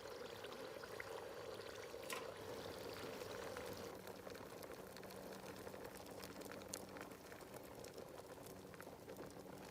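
Food cooking over a campfire: a steady sizzling, bubbling hiss with scattered pops and crackles.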